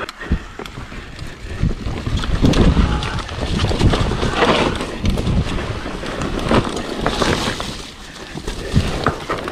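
Mountain bike riding down a loose dirt trail: wind buffeting the microphone over the rumble of the tyres rolling on dirt and leaves, with several sharp knocks as the bike hits bumps.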